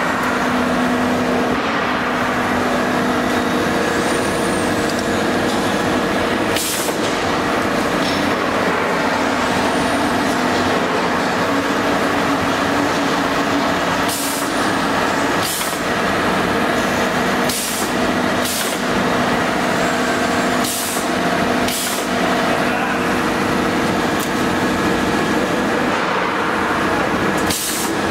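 Three-spindle CNC router running and cutting MDF door panels: a steady, loud mix of spindle whine and cutting noise. Short compressed-air hisses break in several times, and faint high whines rise and fall now and then.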